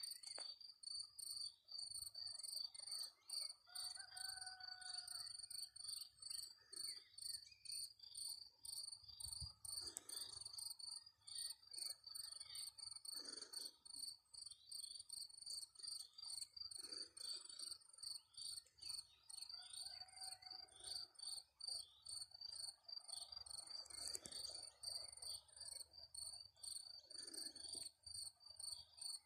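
Cricket chirping steadily, a fast, even run of high-pitched pulses without a break.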